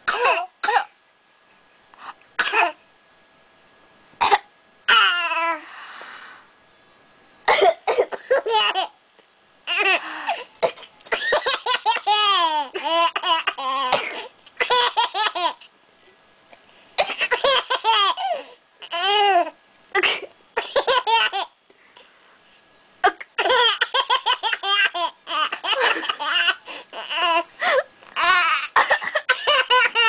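A 10-month-old baby's giggling laughter in repeated fits, each run of laughs set off by short, sharp coughs from a person nearby. A few lone coughs come in the first seconds, then long runs of laughter fill most of the rest.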